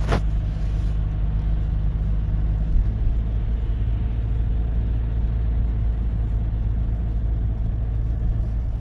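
Steady low rumble of a car's engine and road noise, heard from inside the cabin while driving. There is a short click right at the start.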